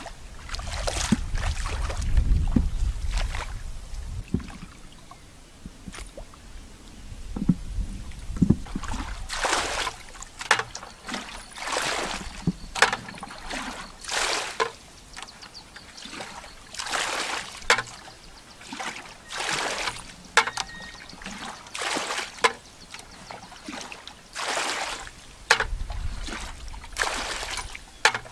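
Shallow muddy paddy water splashing and sloshing in many short, uneven bursts as hands scoop and dig in it. A low rumble fills the first few seconds.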